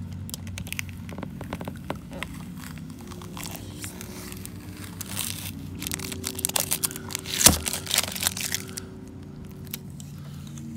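Packing tape being peeled and torn off a plastic bumper, where it had been laid over a drying JB Weld patch. Crackling, tearing noises grow busier in the second half, with one sharp crack about seven and a half seconds in.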